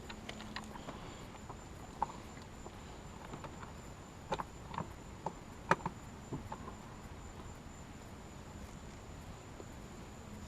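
Scattered light clicks and taps over a faint steady hiss, with a cluster of sharper ones between about four and six and a half seconds in.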